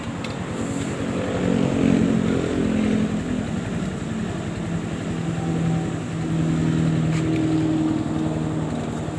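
A motor vehicle engine running steadily, its pitch rising slightly twice and settling back. A few light clicks of cable clamps and wires being handled.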